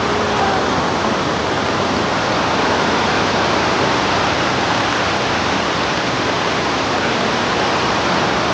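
Steady rushing of a fast-flowing river close to the microphone.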